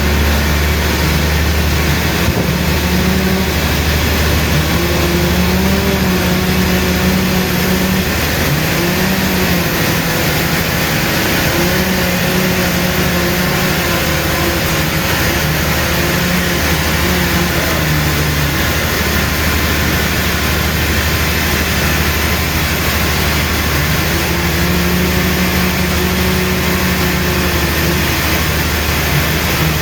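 A machine's motor running steadily with a loud low hum, its pitch rising and falling and dropping out for moments as the load changes.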